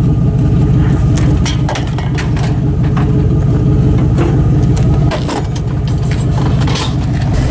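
Pickup truck engine running with a steady low hum, overlaid with scattered rattles and clicks.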